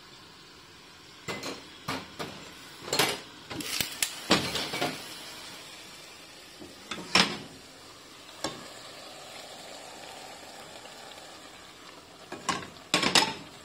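Kitchen clatter of cookware: scattered clinks and knocks of a utensil against a glass bowl and a stainless steel pot. There is a quick run of knocks about three to five seconds in and another near the end.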